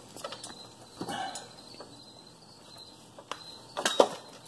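Steel shaft and gear being handled on a small engine's drive: faint metallic scrapes and clicks, with a few sharper knocks near the end.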